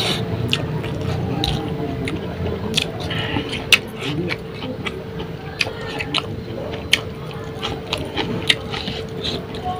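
Close-up chewing and lip-smacking of a mouthful of rice and fish curry eaten by hand: a run of short wet mouth clicks and smacks, several a second, over a faint steady hum.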